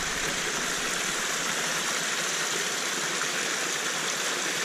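Small mountain stream pouring over mossy rocks in a steady rush of water, with a water bottle being filled under the falling flow.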